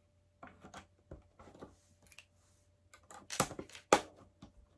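Small plastic LEGO pieces clicking and rattling as they are handled during building, with two sharper, louder clicks about three and a half and four seconds in.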